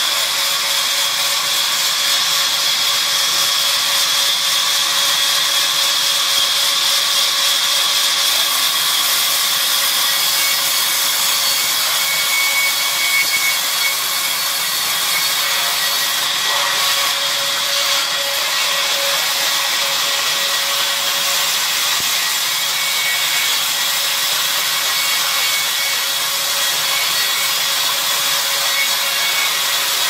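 Sawmill band saw ripping lengthwise through a log: a steady, unbroken whine of the running blade over the rasp of the cut.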